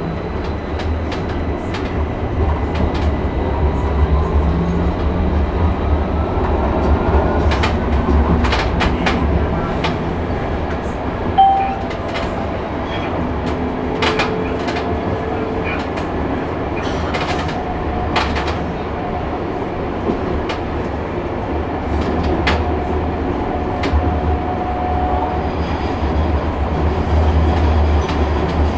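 Nockebybanan light-rail train running, heard from on board: a steady low rumble with repeated clicks of the wheels over the rails, and a whine rising in pitch over the first several seconds. A brief sharp squeak comes near the middle.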